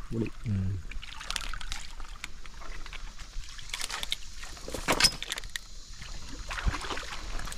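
Scattered clicks and scratches of hands working a freshwater crab, the sharpest about five seconds in, over a faint steady trickle of stream water.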